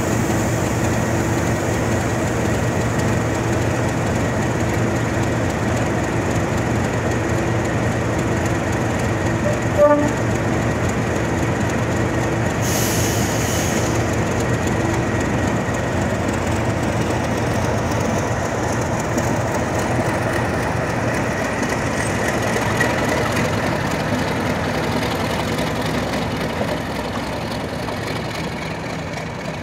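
English Electric Class 37 diesel locomotive's V12 engine running steadily. A single sharp knock comes about ten seconds in and a short hiss a few seconds later, and the sound fades a little near the end.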